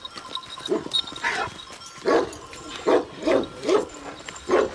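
Kangal shepherd dog barking, about seven barks at uneven intervals.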